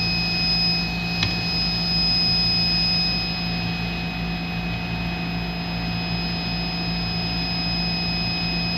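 Steady hum of running laboratory equipment, with high-pitched whining tones over it and a single click about a second in.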